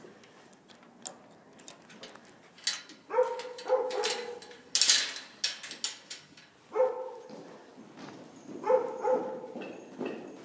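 Short, repeated animal calls, some in quick pairs, each clear-pitched and under half a second long, with a brief burst of noise about halfway through.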